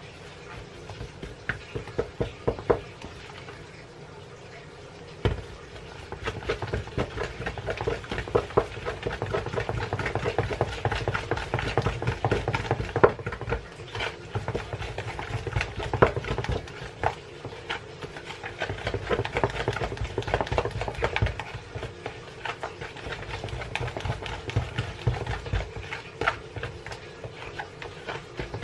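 Wooden spoon stirring thick waffle batter in a plastic tub: irregular knocks and scrapes of the spoon against the tub, growing busier and louder after about five seconds, over a faint steady hum.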